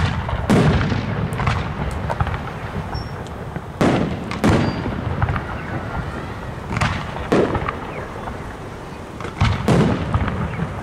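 Aerial firework shells bursting overhead: a series of sudden booms, about eight, some in close pairs, each trailing off in an echo.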